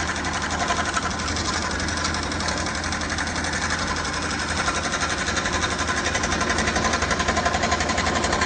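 Scroll saw running steadily, its blade reciprocating rapidly as it cuts through MDF.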